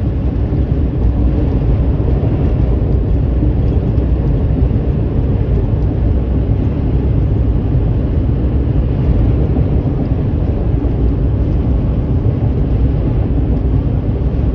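Steady low rumble inside a truck cab at highway speed: road, engine and wind noise in strong crosswinds.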